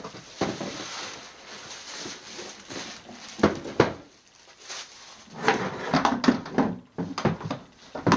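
Paper takeout bag rustling and cardboard food boxes being handled and set down on a table, in a few sharp bursts of crinkling and knocking.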